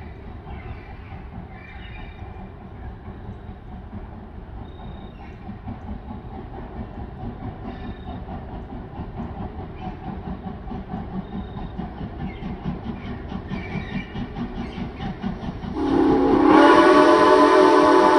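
Wilmington & Western No. 58 steam locomotive approaching, its exhaust chuffing in a quick steady rhythm that grows louder. About 16 seconds in, its steam whistle sounds loud and long as a chord of several tones. Faint bird chirps come early on.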